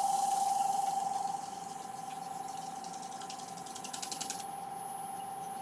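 Wood lathe running with a steady motor whine, louder for the first second or so. A rapid, even run of mechanical clicks sounds over it in the middle.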